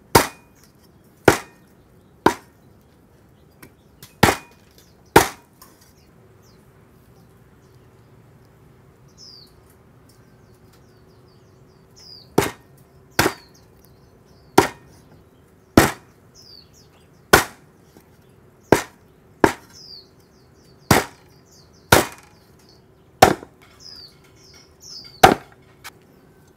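Heavy cleaver strokes chopping through grilled, skin-on meat on a wooden chopping block, about one chop a second, with a pause of several seconds in the middle. Birds chirp faintly in the background.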